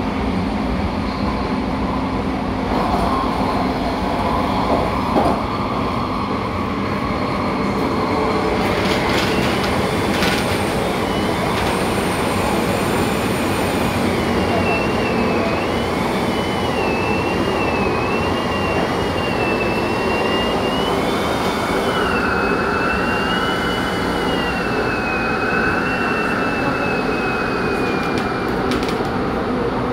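MTR Tung Chung line A-train running, heard from inside the passenger car as a steady rumble. About halfway through, a thin high squeal starts, wavering up and down in pitch, and fades out near the end.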